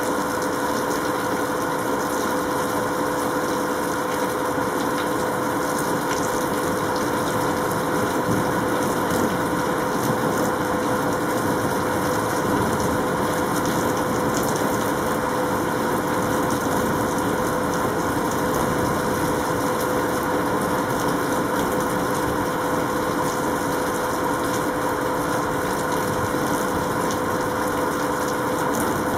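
Steady mechanical hum over a constant hiss, with no sudden cracks or rumbles.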